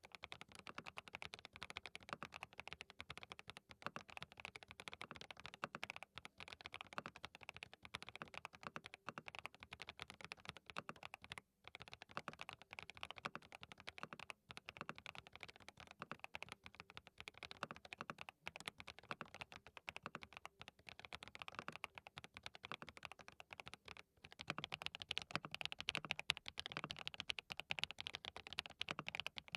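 Fast, continuous typing on a DT35 87-key custom mechanical keyboard fitted with hand-lubed linear switches, SWK Toucan for most of it. Near the end the switches change to SWK Dragon Ghost, and the keystrokes turn louder and deeper.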